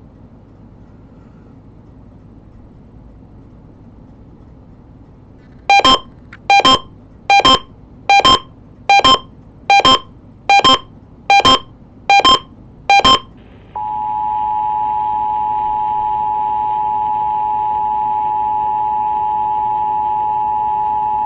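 Nine short, loud electronic bursts about 0.8 seconds apart, then the Emergency Alert System attention signal, a steady two-tone sound, starting about 14 seconds in and holding on. Faint radio hiss before the bursts.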